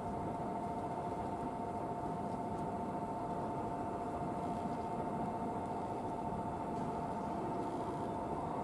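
Rumble of a train moving slowly through a station yard, with two steady high-pitched tones held together throughout.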